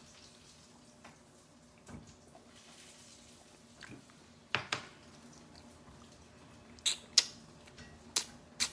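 Quiet room tone broken by six short, sharp clicks or taps, in pairs: two about halfway through, two more about a second and a half later, and two near the end.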